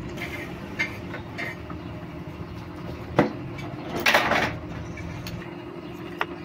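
Metal tools and motorcycle clutch parts clinking as they are handled during clutch assembly: a few light clicks, a sharp knock about three seconds in, then a brief metallic clatter about a second later.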